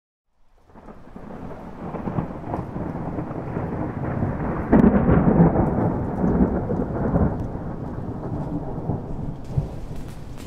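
Rolling thunder: a deep rumble that rises out of silence, is loudest about five seconds in, then slowly dies away.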